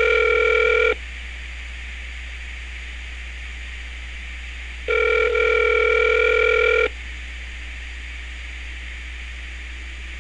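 Telephone ringback tone on an outgoing call: the line ringing at the far end, about two seconds of steady tone then four seconds of silence. One ring ends about a second in, and a second ring runs from about five to seven seconds in.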